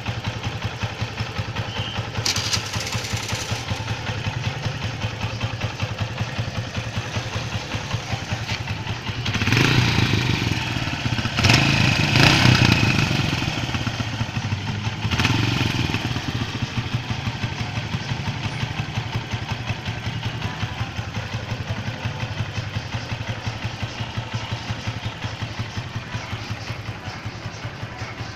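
Kawasaki Boss 175 single-cylinder four-stroke engine idling with a steady pulse, warm from riding in traffic. It is revved three times, from about a third of the way in to just past the middle, and settles back to idle after each.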